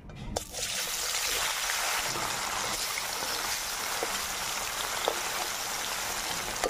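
Pieces of katla fish going into hot mustard oil in a metal kadai and frying: a steady sizzle that starts suddenly about a third of a second in, with crackling and a few sharp pops.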